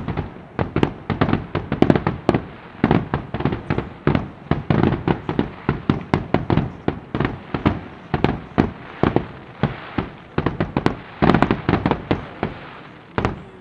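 Fireworks display in full barrage: a rapid, unbroken run of sharp bangs and reports, several a second, from shells and rising gold-tailed effects bursting overhead.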